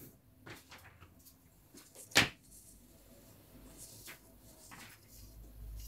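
Wooden pattern-drafting rulers being handled and laid on pattern paper: faint paper rustling and light taps, with one sharp tap about two seconds in.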